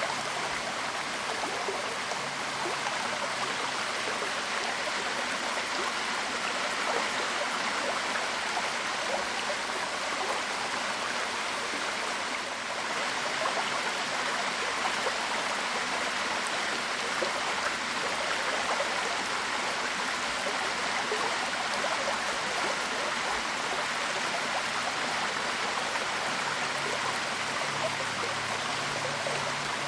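Waterfall: water pouring and splashing in a steady, even rush, with a brief slight dip about halfway through.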